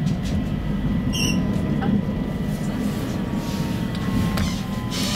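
Stockholm A35 tram running at speed, heard from inside the passenger cabin: a steady low rumble of wheels on rails and running gear, with a brief high squeak about a second in and a faint whine slowly falling in pitch from about three seconds in.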